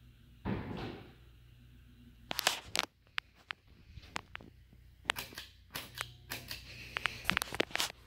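Harbor Breeze Woodbridge 52-inch ceiling fan running with a low steady hum. A short rustle comes half a second in, and from about two seconds in there are irregular clusters of sharp clicks and knocks, louder than the hum.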